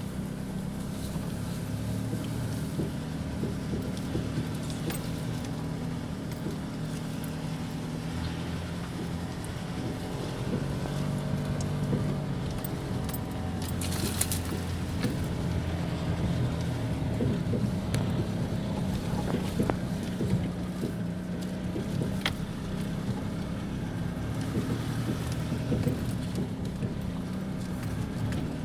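Nissan Navara D40's 2.5 dCi four-cylinder turbodiesel running under load as the pickup drives off-road in four-wheel-drive high range, its pitch rising and falling. Short knocks and rattles come through over the engine sound.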